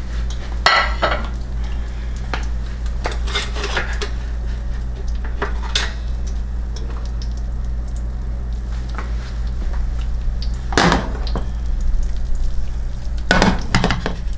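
Plates and kitchen utensils clinking and knocking as they are handled and set down, a handful of separate clatters over a steady low hum and a faint sizzle of butter and bacon grease in a frying pan.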